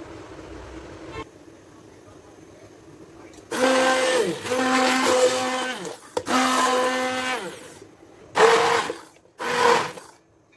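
Hand-held immersion blender puréeing cooked spinach, its motor whining in five bursts starting about three and a half seconds in: three longer runs, then two short pulses near the end.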